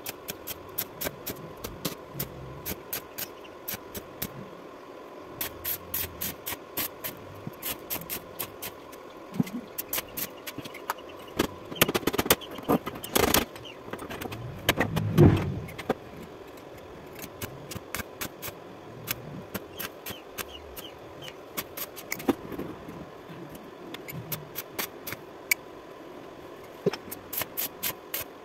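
Stick-welding arc crackling in runs of sharp clicks as a rusty steel bar is welded onto a wheelbarrow frame. About halfway through, metal scrapes and a single knock as the bar is handled.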